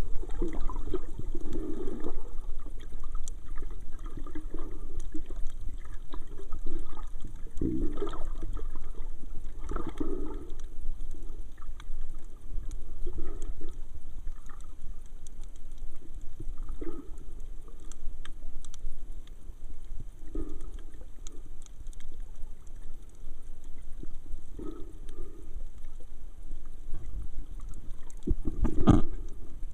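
Muffled underwater water noise picked up by a submerged camera: a low rumble with irregular gurgling swells every few seconds, the loudest one near the end.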